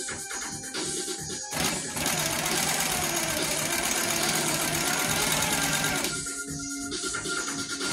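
Baby Lock Coronet longarm quilting machine stitching at speed, loudest from about two to six seconds in, with background music playing.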